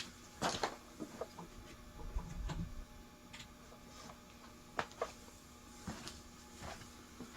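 Scattered light clicks and taps from handling the ceiling fan's switch housing and parts during a quick test, with a soft low thud about two seconds in, over a faint steady hum.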